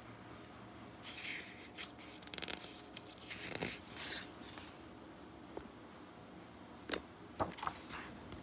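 Picture-book page being turned by hand: paper rustling and sliding from about a second in, then a few light clicks near the end as the book is handled.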